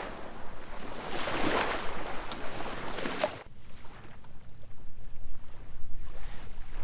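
Small waves breaking and washing up a sandy shore, swelling and fading. About three and a half seconds in it changes suddenly to wind rumbling on the microphone.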